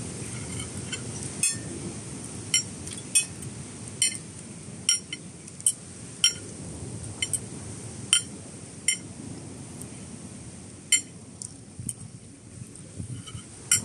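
Cutlery clinking against plates and crockery while eating, about a dozen sharp, ringing clinks at irregular intervals, over a steady low background hum.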